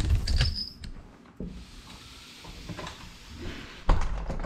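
Handling knocks as the small FPV drone's camera is set down and moved on a hard floor: a loud thump at the start, a few smaller knocks and a soft rub, then another loud thump near the end.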